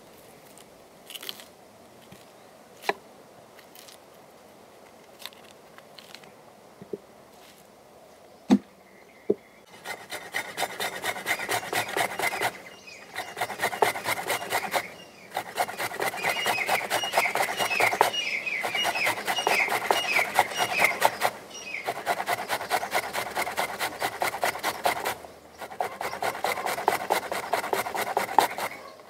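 A few soft clicks, then from about ten seconds in, peeled onions rubbed fast over a steel hand grater set on a steel bowl. The rapid rasping strokes come in runs of a few seconds with short pauses between them.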